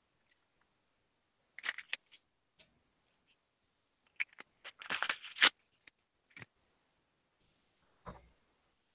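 Scattered short clicks and rustles, in a cluster about two seconds in and a longer one about five seconds in, with a couple of single clicks after.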